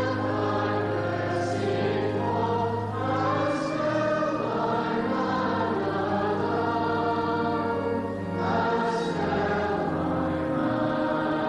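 Church choir singing with pipe-organ accompaniment: held chords over a steady low bass note that changes pitch twice.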